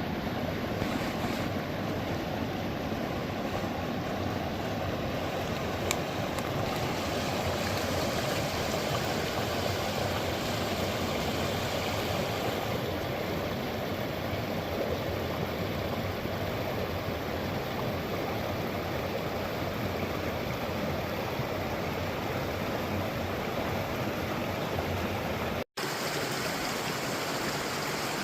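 Forest stream flowing steadily over rocks, a continuous rush of water. About 26 seconds in, the sound cuts out for an instant and resumes with less low rumble.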